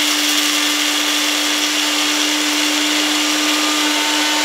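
Master Bullet 700-watt personal blender running steadily while grinding whole coffee beans in its short grinding cup, which is held pressed down on the base. There is a steady motor hum over the loud noise of the beans being ground.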